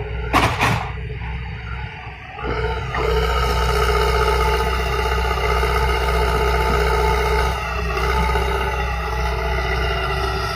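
Kobelco SK130 excavator's diesel engine running under hydraulic load, with a sharp clank about half a second in. The engine dips briefly around two seconds in, then loads up again and runs louder and steadier.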